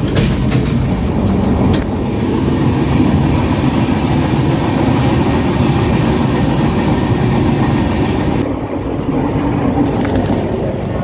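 Moving passenger train heard from inside the coach: a loud, steady rumble and rattle of the wheels on the track, with a few clicks near the start; the higher hiss drops away about eight seconds in.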